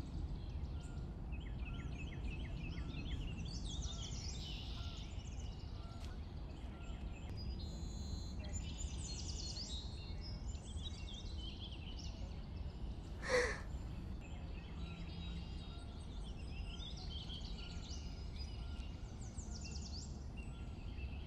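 Outdoor ambience: small birds chirping and trilling over a steady low rumble, with one short sharp sound about 13 seconds in.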